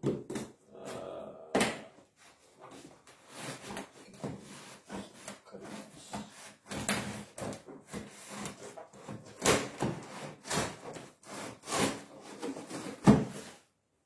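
Cardboard box being cut and pried open with scissors: irregular scraping and rubbing with scattered knocks, the loudest knock near the end.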